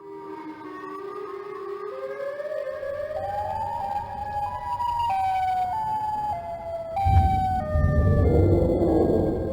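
Electronic music: a sustained melody whose notes first glide slowly upward, then step up and back down in pitch. A loud, noisy low layer joins about seven seconds in.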